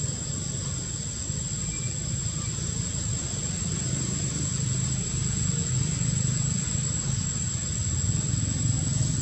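Steady low rumble of outdoor background noise, a little louder from about four seconds in, with a constant thin high-pitched whine above it.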